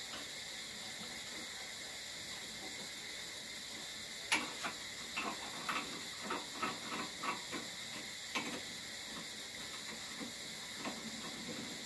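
Hand work on a small metal pressure-washer nozzle fitting held in a bench vise: a run of short metallic clicks and scrapes, roughly two a second for about four seconds, then one more click near the end.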